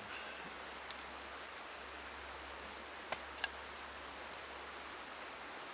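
Knife working a log to carve feather sticks, with two short sharp cracks of wood about three seconds in, over a steady hiss of background noise.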